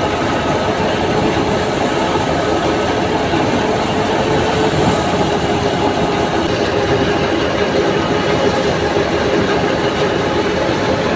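Tractor-powered wheat thresher running steadily as wheat stalks are fed into it. It gives a loud, even mechanical din with a steady hum underneath.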